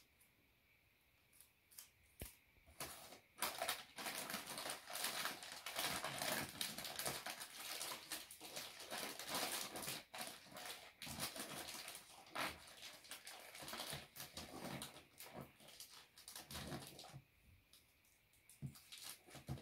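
Wrapping paper crinkling and rustling in irregular crackles as it is folded around a small box. It starts a few seconds in and dies down near the end.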